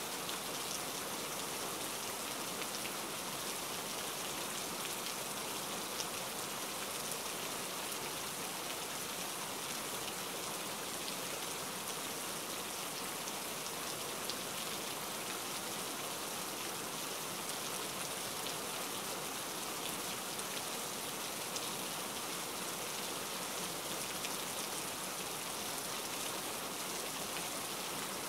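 Steady rain: a dense, even hiss of falling rain with fine separate drop hits, unchanging throughout.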